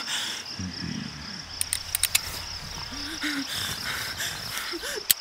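Steady high-pitched insect trilling, like crickets, with a slight pulse, over quiet forest ambience. A few sharp clicks come about two seconds in.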